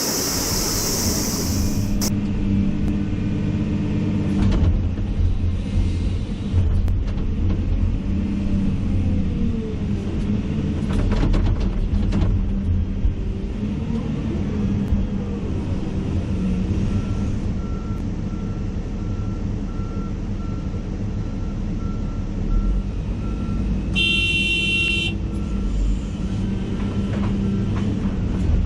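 A Komatsu HB365 hybrid hydraulic excavator running, its engine note rising and falling with the load as it works, with occasional clicks and knocks. From about halfway there is a steady row of short beeps, and a few seconds before the end a brief, loud high-pitched tone sounds.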